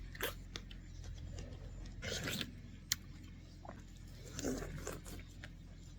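Intermittent rustling and scraping: a few short scrapes a second or two apart, with a single sharp click about three seconds in.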